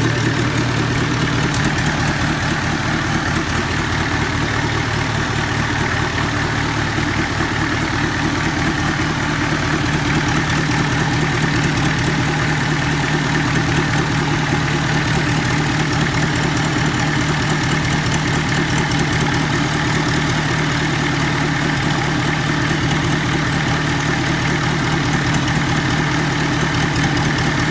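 An engine idling steadily with an even, unchanging beat, typical of a forklift engine run after an overhaul.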